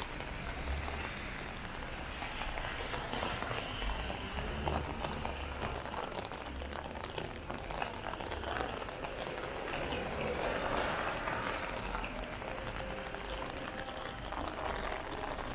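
Rain falling and dripping on a wet street: an even hiss with many small, quick taps.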